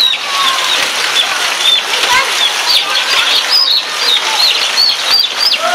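Rapid, high chirps from small birds, several a second, over the steady hiss of rain.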